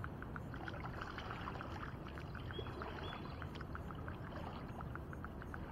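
Lake water lapping and splashing against a kayak hull, a steady wash scattered with many small clicks and ticks, over a low rumble of wind on the microphone.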